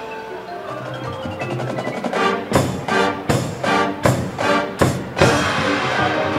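Marching band music: a soft passage with marimbas and other mallet percussion holding notes, then about two and a half seconds in the full band strikes a run of loud, sharp accented hits before carrying on with fuller sustained sound.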